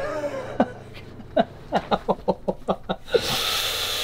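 A man laughing to himself in short, quick breathy pulses, followed about three seconds in by a steady hiss.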